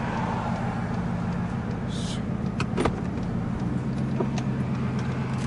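Ford F-150 Raptor's twin-turbo V6 running at low speed, heard from inside the cab as a steady low drone that drops a little in pitch and settles about two thirds of the way in. A brief hiss comes around two seconds in, followed by a couple of sharp clicks.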